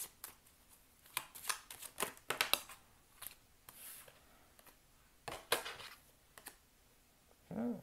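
Tarot cards being shuffled by hand and laid onto a wooden table: a run of short flicks and taps with brief pauses between them.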